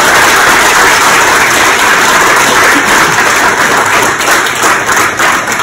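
Audience applauding: dense, steady clapping that thins into scattered individual claps near the end.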